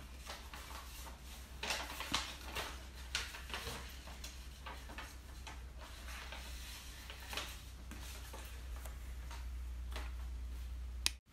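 Paper rustling as a folded toy leaflet is opened and handled, with scattered light clicks of small plastic toy parts, over a steady low hum. A sharp click comes just before the sound cuts out near the end.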